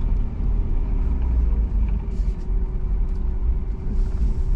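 Ford F-450 pickup driving, heard from inside the cab: a steady low engine and road rumble. A thin, steady hum joins it about halfway through.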